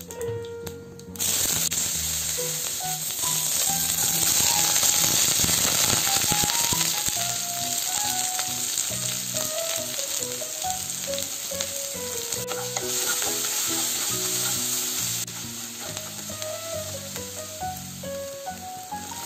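Hot oil sizzling in a pan as dried red chillies, curry leaves and chopped onions fry for a sambar tempering, stirred with a spoon; the sizzle starts suddenly about a second in. Soft background music with a simple melody plays underneath.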